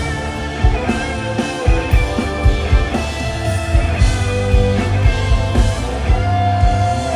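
Live rock band playing an instrumental passage: electric guitars over bass and drums.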